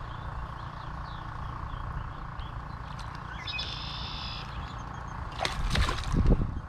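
A hooked largemouth bass splashing and thrashing at the bank's edge near the end, over a steady low rumble. A bird gives a short trill around the middle.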